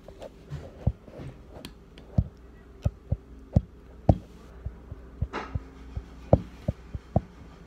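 Handling noise from a phone held against hair: irregular soft thumps and rubbing as the phone's microphone knocks and brushes against it, with a brief rustle about five seconds in, over a faint steady hum.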